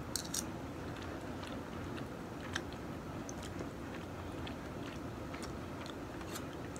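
Quiet chewing of a mouthful of food taken from a metal spoon, with a few faint clicks.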